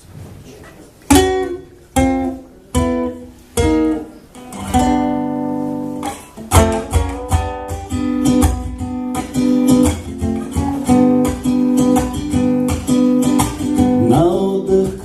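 Acoustic guitar playing a song introduction: a few separate strummed chords about a second apart, then steady rhythmic strumming.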